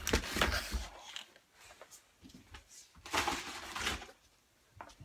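Packaged electronics being handled in and against a cardboard box: rustling and scraping in two spells, one in the first second and one about three seconds in, with softer handling noises between.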